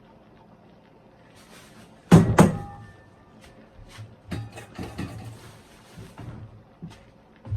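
Kitchen clatter: two loud clanks about two seconds in, the second leaving a brief ringing, followed by a series of lighter knocks and clicks.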